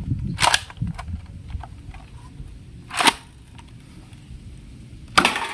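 Toy gun being tried out: sharp mechanical clicks about half a second in and again, louder, about three seconds in, with a louder noisy burst near the end and faint handling noise between.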